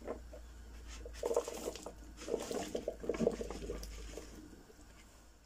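Diced raw potato cubes poured from a plastic bowl into a pan of sauce and peas, landing with a soft pattering clatter in two runs: about a second in, and again from about two to three and a half seconds. A faint steady low hum lies underneath.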